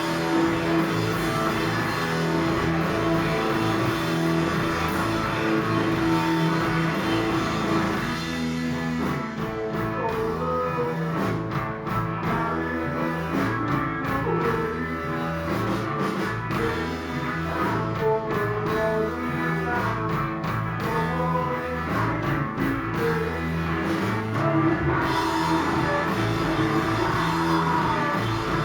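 Rock band playing: electric guitar and bass held on sustained notes, with a drum kit keeping a steady beat from about nine seconds in.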